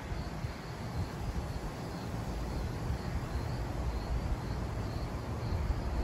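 Crickets chirping, a faint high pulsing that repeats steadily, over a low uneven rumble of wind on the microphone.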